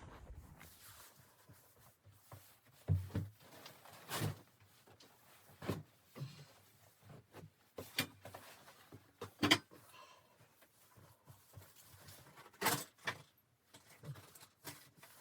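A string of irregular knocks, clunks and clicks, as of objects being handled and set down in a small room, with short gaps between them.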